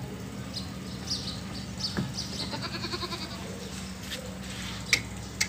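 Goat bleating once, a quavering call about two seconds in, over a steady low hum. Two sharp knocks come near the end.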